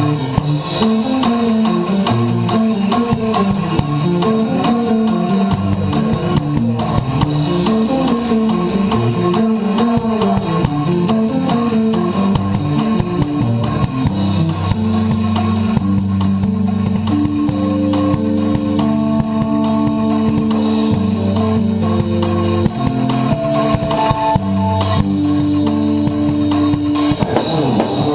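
Progressive metal band track with guitars and a drum kit playing hard, the drums played live over the recorded song. The guitar riff moves up and down through the first half, then settles into longer held notes about halfway through.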